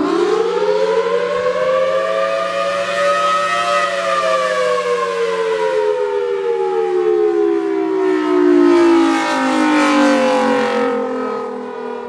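Federal Signal Thunderbolt 1003A outdoor warning siren sounding its attack wail as a two-tone chord from its 5/6 port-ratio rotor. The pitch climbs steeply, peaks about four seconds in, then slides slowly down and fades toward the end.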